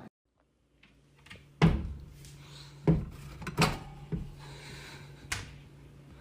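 Five sharp knocks at uneven intervals over a low steady hum, like things being handled in a small room.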